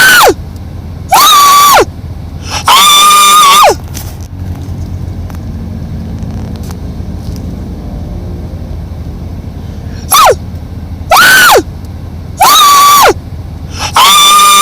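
A pet animal calling loudly and shrilly, over and over. Each call rises, holds a high pitch and drops away at the end. Three calls come close together, then after about six seconds of quiet four more follow.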